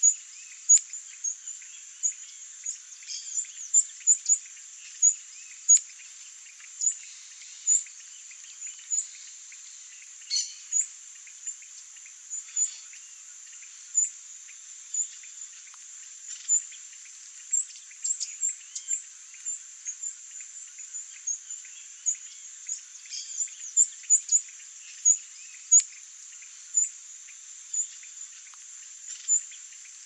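A steady, high-pitched insect chorus, with many short, sharp high chirps scattered over it at irregular intervals, about one or two a second.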